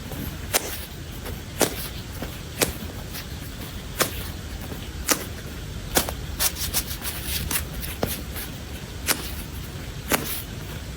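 Sharp, short clicks or taps, roughly one a second and sometimes two close together, over a steady low background noise.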